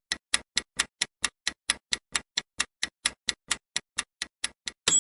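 Quiz countdown timer sound effect: fast, even clock-like ticking, about four and a half ticks a second. Right at the end a bell ding rings out as the answer time runs out.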